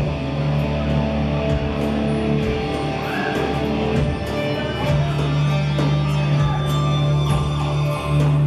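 Live rock band playing an instrumental passage with no vocals: held bass-guitar notes and keyboards under electric guitar, with drums keeping time on the cymbals in regular strokes.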